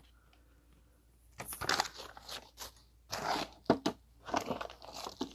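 Plastic packaging crinkling and rustling in irregular handling bursts as lure packages are opened, with a sharp click partway through.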